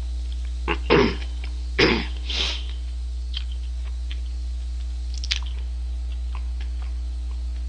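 A man chewing a mouthful of double cheeseburger close to the microphone, with a few short throat and breath noises about one and two seconds in, over a steady low hum.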